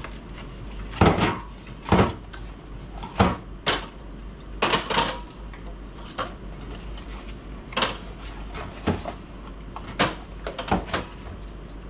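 Aluminium soda cans being set one by one onto the shelves of a fridge: about a dozen separate knocks and clunks at an uneven pace.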